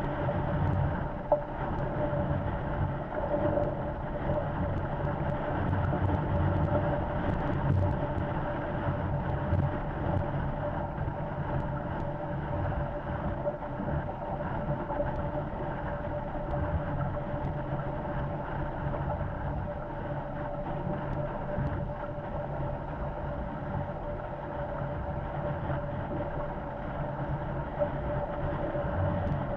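Wind buffeting the microphone and water rushing past the hulls of a Corsair F-24 MKII trimaran sailing fast in strong wind. It is a steady low rumble with a faint steady hum over it, and a single sharp knock about a second in.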